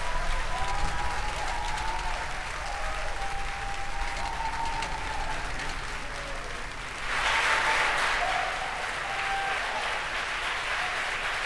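Crowd applauding and cheering, with scattered whoops over a steady clatter of clapping. It swells louder about seven seconds in.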